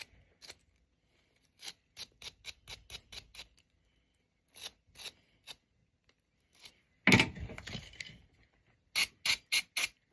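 Brass wire brush scrubbing a spark plug in short, quick strokes, coming in runs of several strokes a second. About seven seconds in there is a louder rubbing scrape lasting about a second, and near the end four hard strokes.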